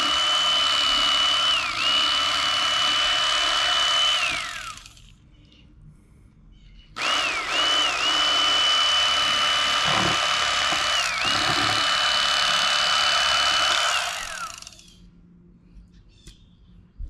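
Electric fillet knife running in two long bursts with a pause of about two seconds between them, skinning a trout fillet. Its motor whine dips in pitch briefly a few times as the blade meets resistance, and each burst winds down as the trigger is let go.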